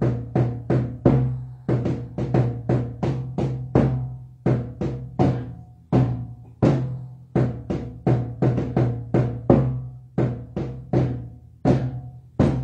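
Drum music: a steady run of hand-drum strikes, about three to four a second in uneven groups.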